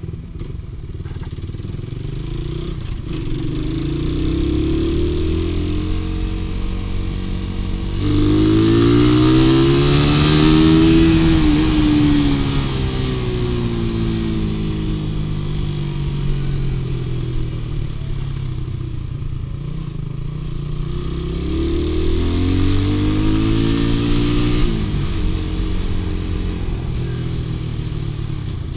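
Suzuki Raider FU150 (Satria F150) motorcycle's single-cylinder four-stroke engine heard from the rider's seat while riding, its pitch rising as it accelerates and falling as it eases off. It pulls hardest about eight to twelve seconds in, and again a little past twenty seconds.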